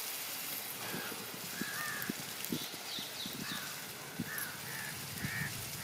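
A wooden spatula stirs a thick curry in a pot, making soft knocks and scrapes, over a steady hiss. A bird calls again and again with short, arched calls.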